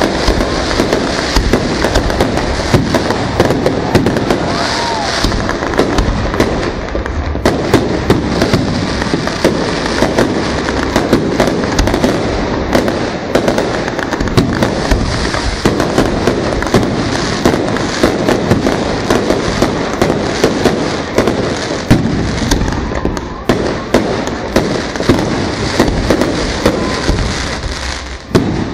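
Fireworks display: a dense, continuous barrage of bangs and crackles, many per second, with no let-up.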